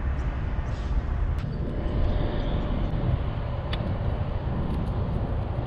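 Steady low outdoor rumble, with two light clicks about a second and a half in and again near four seconds in.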